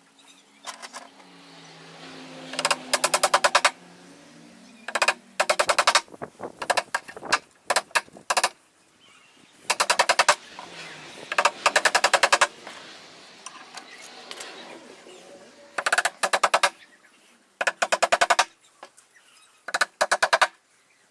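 Impact driver hammering in about eight short bursts of rapid, evenly spaced blows, each a second or less long, driving screws into wood.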